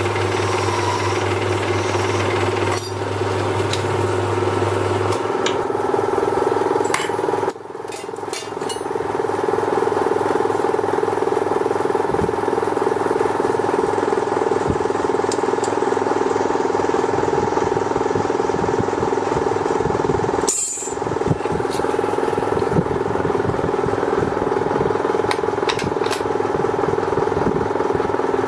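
Small belt-driven lathe running steadily: a continuous mechanical drone with a steady hum, dipping briefly twice.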